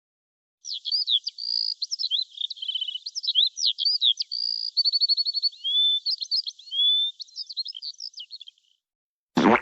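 A songbird singing a long, varied song of quick chirps, slurred whistles and rapid trills, stopping about a second before the end. Just before the end comes a short, loud swoosh.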